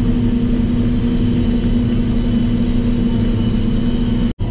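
Steady machinery hum: an engine or motor running at constant speed with one strong low pitch and a fainter high whine above it. It drops out for an instant near the end.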